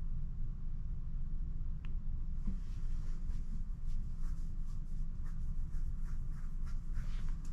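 Handling noise of a new smartphone in the hands: faint, irregular light ticks and rubbing that start about two and a half seconds in, over a steady low hum.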